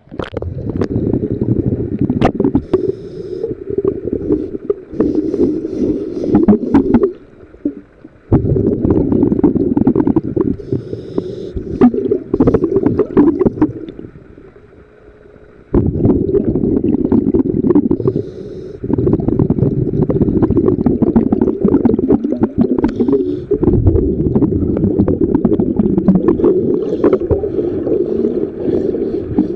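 Underwater sound picked up through a diver's camera housing: a scuba diver's exhaled bubbles rumbling in long bursts with short quieter breaks between breaths, and scattered sharp clicks throughout.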